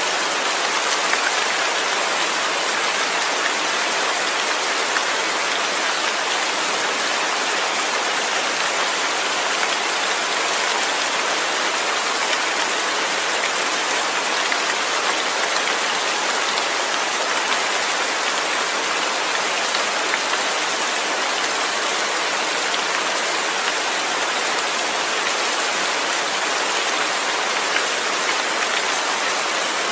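Rain falling steadily, an even wash of drops that doesn't let up, with no thunder.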